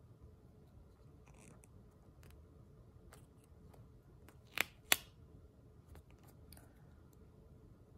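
Small craft scissors snipping sticker paper: two sharp snips about a third of a second apart, a little past halfway, with faint paper taps and rustles before them.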